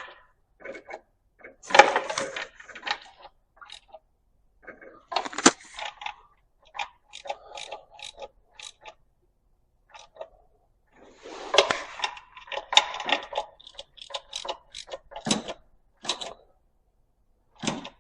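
Hand tools clicking and clinking in short, irregular spells as valve cover bolts are snugged down lightly over new gaskets.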